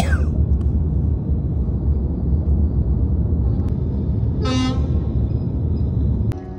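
Steady low road and engine rumble heard from inside a moving vehicle. About four and a half seconds in, a vehicle horn gives one short toot.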